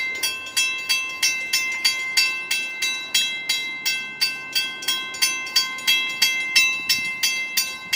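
Railroad grade-crossing bell ringing steadily, about three strikes a second, each strike leaving a clear ringing tone.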